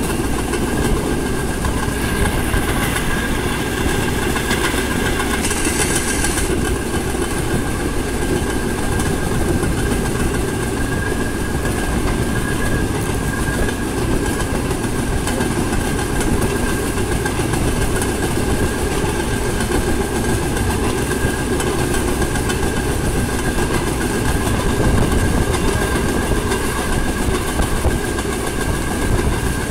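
Narrow-gauge rail vehicle running along the track: a steady rumble of wheels on rails with a thin, steady whine over it.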